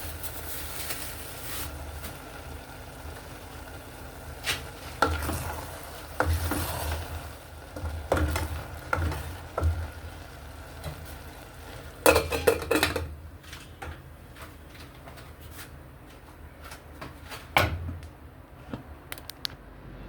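A serving utensil scraping and clinking against a pot and plate as okra soup is dished up, in irregular clusters of clatter; the loudest burst comes about twelve seconds in.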